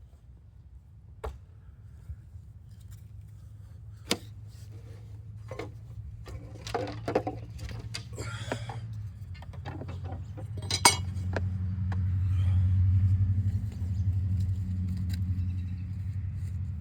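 Scattered clicks, clinks and knocks of objects being handled. Under them runs a low hum that swells about nine seconds in and stays loud to the end.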